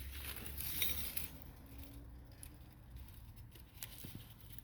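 Faint clinks of glass and metal from the parts of an opened Sony Trinitron picture tube being handled: a low hum at first, then a few scattered light clicks.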